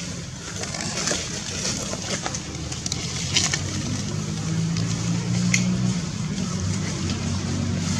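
A low, steady engine hum of a motor running, which settles into an even pitch about halfway through, with a few scattered light clicks over it.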